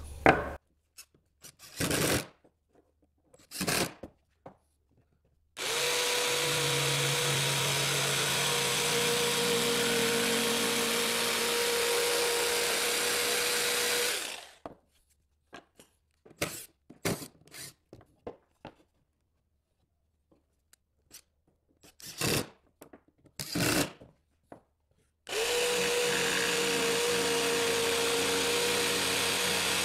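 Electric jigsaw cutting a solid wood board, running at a steady pitch for about nine seconds, stopping, then starting again near the end for a second cut. A few short wooden knocks come before and between the cuts.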